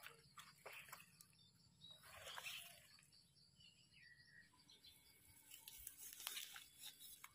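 Faint rustling and crunching of dry leaf litter and twigs on the forest floor, with a few sharp clicks, as a gloved hand and a knife work around a wild mushroom; a louder rustle comes about two seconds in and clicks come near the end.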